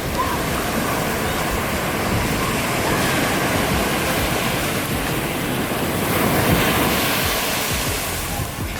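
Ocean surf washing onto the beach, with wind buffeting the microphone. The surf swells louder about two-thirds of the way through as a wave comes in, then eases off.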